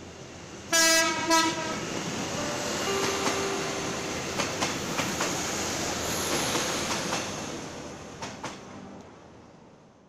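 A passing train sounds its horn in two blasts about a second in, then its wheels clatter rhythmically over the rail joints as it rolls by, fading away near the end.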